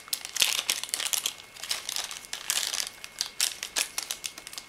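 Small plastic hardware bag crinkling as it is handled and opened to take out the cooler's mounting standoffs, in an irregular run of crackles.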